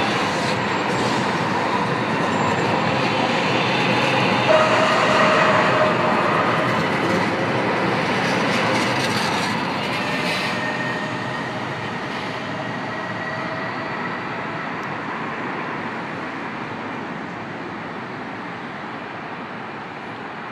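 Los Angeles Metro Expo Line light-rail train passing close by: a steady rumble and rattle of steel wheels on rail, with brief thin high whining tones from the wheels. About ten seconds in it starts to fade as the train moves away.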